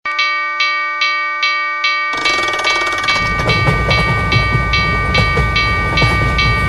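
Railroad crossing warning bell ringing its repeated clang, about two strikes a second. About two seconds in, the rumble and clatter of a passing train joins it.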